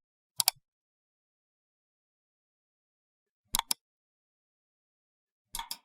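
Computer mouse button clicking: three quick double clicks a few seconds apart.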